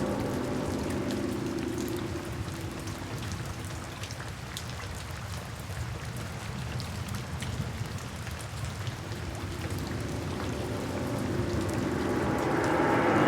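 Steady rain, with individual drops ticking sharply through it. Soft background music fades out at the start and swells back in near the end.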